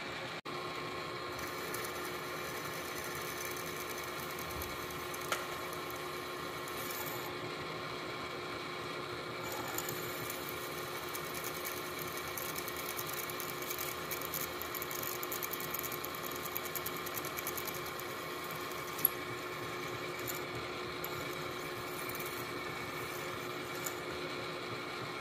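Vertical milling machine's spindle running steadily, driving a twist drill that bores a cross hole through a round shaft. It makes an even whine with a couple of faint clicks.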